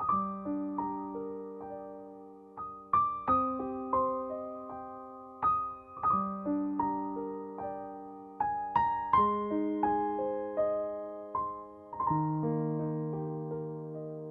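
Slow solo piano music: single notes and broken chords struck and left to ring out, with a new chord about every three seconds.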